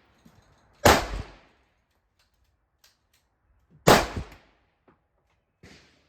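Two loud handgun shots about three seconds apart, each with a short ringing tail, then a fainter shot near the end.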